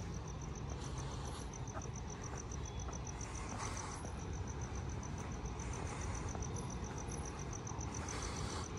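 A cricket chirping in a fast, even pulse, over a low background rumble.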